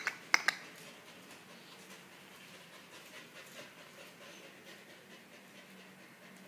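Samoyed puppy panting faintly, after two sharp clicks near the start.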